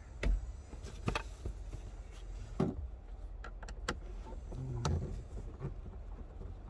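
Scattered clicks and knocks of hands and a tool working at the screws under a car's glove box, with a short low sound about two-thirds of the way through.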